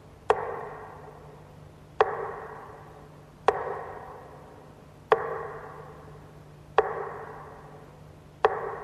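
A sombre struck note tolls six times, about every second and a half. Each strike rings out and fades before the next, over a faint steady low hum.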